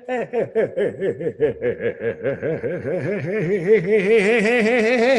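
A man laughing in a long chuckle, pulsing about five times a second, that runs on into a louder, more continuous wavering laugh about three seconds in.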